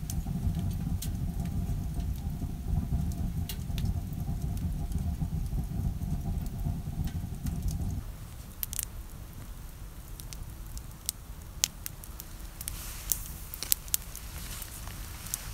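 Wood campfire crackling, with scattered sharp pops. A steady low rumble lies under the first half and cuts off suddenly about eight seconds in.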